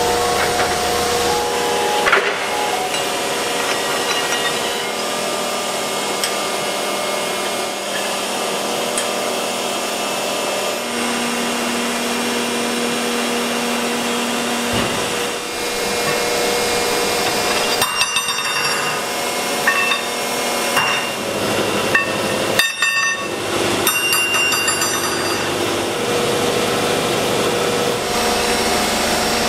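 Steady hum of metal-forming factory machinery with a few sharp metal knocks, the loudest about two seconds in.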